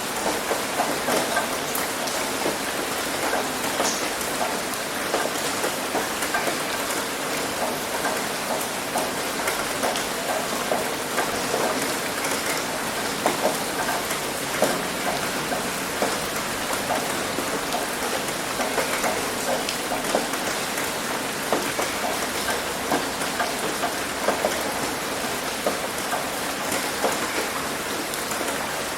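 Steady heavy rain drumming on a roof and splashing onto concrete, a dense patter with scattered louder individual drops.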